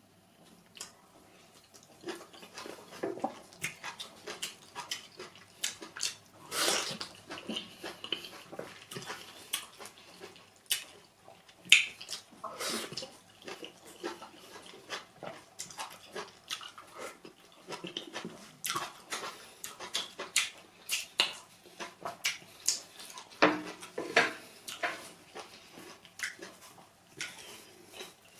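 Close-up eating sounds of pounded yam and efo riro vegetable soup: wet chewing, lip smacks and squishing, many short irregular smacks and clicks.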